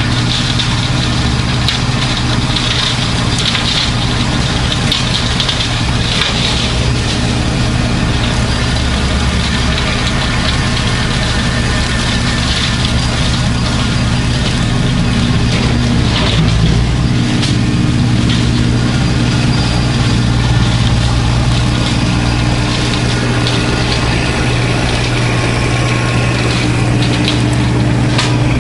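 Kubota B2650 compact tractor's three-cylinder diesel engine running at a steady speed while it drives a rotary cutter (brush hog) through briars and undergrowth.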